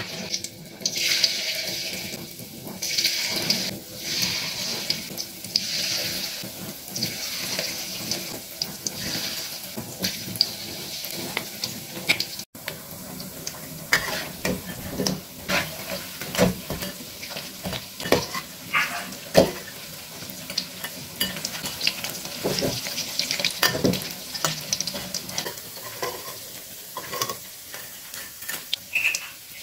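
Battered cauliflower florets deep-frying in hot oil in a wok, sizzling in surges. From about halfway on, the sizzle is lighter and is broken by frequent knocks and scrapes of a spatula and a wire mesh strainer against the wok.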